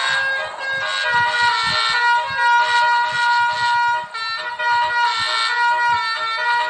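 Bus telolet horn of the Basuri type, several horn trumpets sounding together and playing a tune of held notes that change every half second or so.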